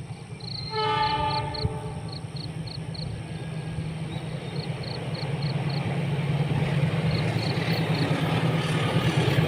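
Argo Parahyangan express passenger train approaching at speed: a horn blast about a second in, then a steady rumble that grows louder as it nears. A faint high ticking repeats about twice a second under it.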